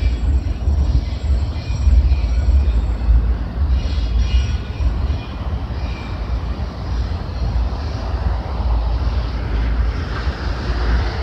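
Slow-moving freight train of autorack cars rolling past, a steady low rumble from the wheels on the rails, with brief faint high squeals now and then.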